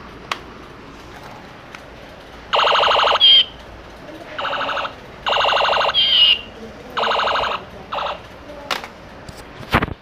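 A battery toy projector gun plays its electronic shooting sound effect: five short bursts of a pulsing, siren-like tone, about half a second each, with a short chirp after two of them. A few clicks and a knock near the end come from the plastic gun being handled.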